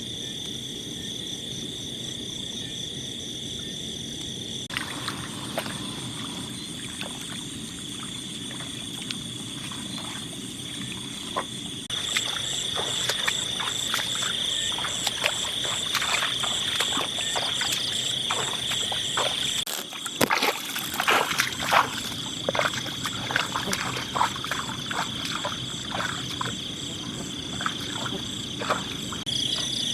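Night chorus of insects and frogs, a steady high trilling with faster pulsing above it, with irregular clicks and knocks on top that come thickest about two-thirds of the way in.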